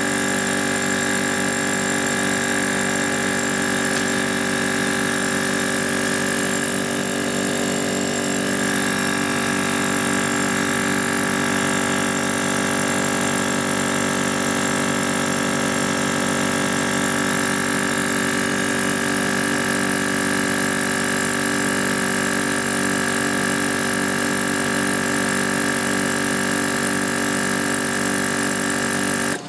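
EPAuto 12V DC portable tire inflator's air compressor running steadily as it pumps up a car tire, a constant pitched mechanical drone. Right at the end it cuts off abruptly: it has reached its 33 PSI setting and shut off automatically.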